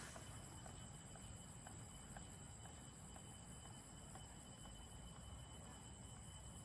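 Faint forest ambience: a steady high insect drone with a fast, even pulsing chirp above it, and a few faint ticks.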